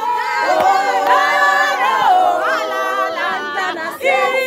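A crowd of voices singing together a cappella, in long held notes that glide between pitches.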